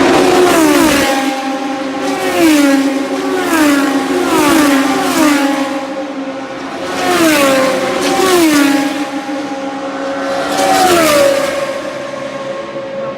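Racing car engines running at high revs as the cars pass one after another, the pitch dropping as each goes by, about seven or eight times.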